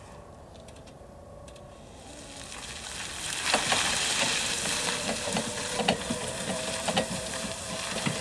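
Steinbock Boss LE20 electric forklift driving over gritty, gravel-strewn pavement: its tyres crunch and crackle on the grit over a steady electric motor whine, getting louder from about two and a half seconds in as it comes closer.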